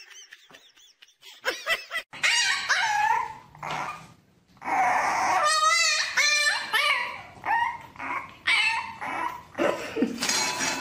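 Dogs whining and yipping in a string of high-pitched cries that start about a second and a half in.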